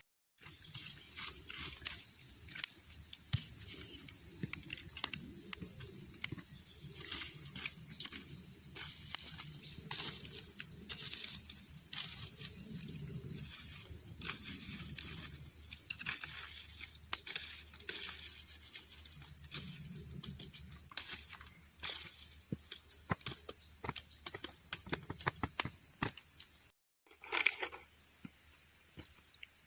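Steady, high-pitched insect chorus with scattered small clicks and a faint low murmur underneath. The sound cuts out briefly twice, just after the start and near the end.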